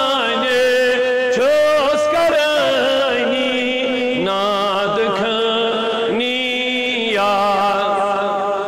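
A solo voice chanting an Islamic devotional recitation in long, held, ornamented notes that waver in pitch, dropping to a lower note about four seconds in.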